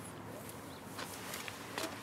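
Steady outdoor background hiss with about four short, sharp clicks spread over the two seconds.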